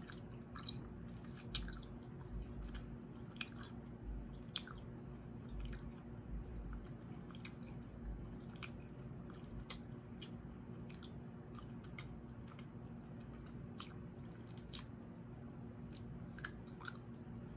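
Close-up mouth sounds of someone chewing a soft, chewy Now and Later taffy candy: small wet clicks and smacks scattered irregularly, over a faint steady hum.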